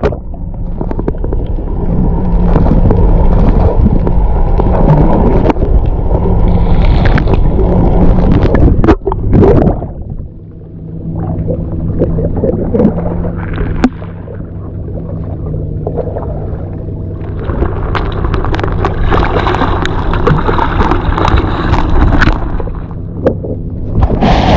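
Water gurgling and sloshing around a camera held at and under the sea surface, over the steady hum of a boat motor.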